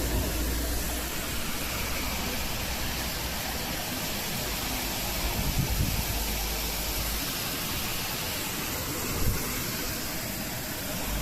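Strong storm wind, a steady rushing hiss, with gusts buffeting the microphone in low rumbles now and then.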